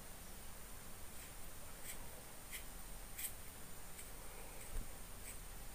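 A few faint plastic clicks and scrapes as hands twist open the screw-on battery cap of a Boya BY-M1 lavalier microphone's power pack.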